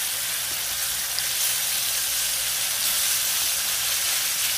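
Starch-coated garfish pieces deep-frying in a pot of hot oil: a steady sizzle.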